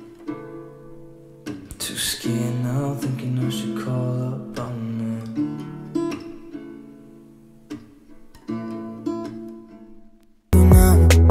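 Background music: acoustic guitar strumming and picking, fading out over the last few seconds. After a brief silence, a louder track with a heavy bass starts abruptly near the end.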